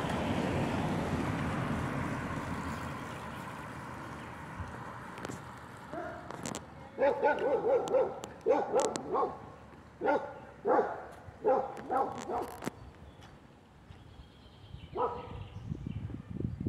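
A dog barking in a series of short, loud barks, about eight in six seconds, with one more near the end. In the first few seconds the road noise of a passing car fades away.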